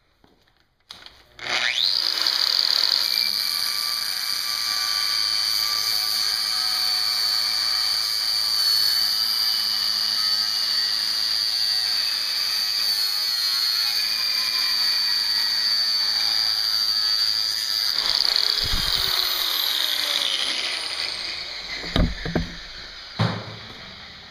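Angle grinder with an abrasive cutoff wheel cutting through a high-carbon steel file clamped in a vise: a steady high whine that starts about a second and a half in. Near the end it is switched off and the whine falls as the wheel spins down, followed by two sharp clunks.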